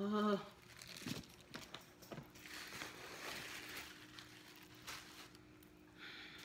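White paper stuffing being pulled out of a leather handbag, rustling and crinkling in several short bursts. A brief hummed vocal sound comes at the very start.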